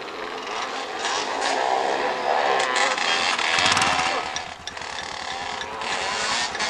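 Off-road vehicle engines revving, their pitch rising and falling over and over.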